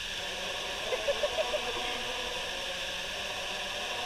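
Steady rush of water pouring through a small breached dam, with a quick run of short pitched calls about a second in.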